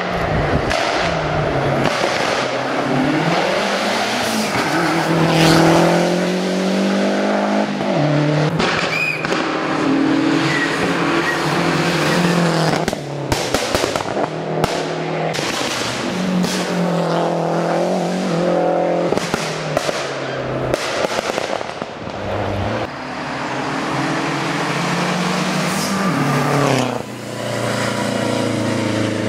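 Lancia Delta HF Integrale rally car's turbocharged 2.0-litre four-cylinder engine driven hard, revving up through the gears again and again, with sharp pops and cracks among the revs.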